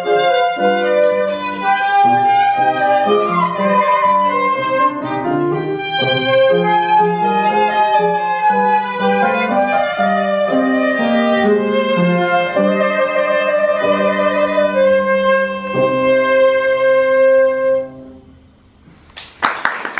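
Violin and flute playing a melody together over piano accompaniment, closing on a held chord near the end. After a brief pause, an audience starts applauding.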